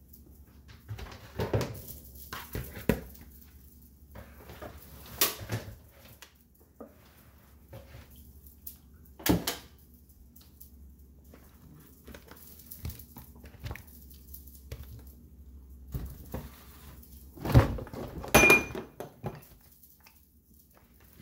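Scattered knocks and clatters, as of objects being handled and set down, a few seconds apart, with the loudest pair near the end, over a faint steady low hum.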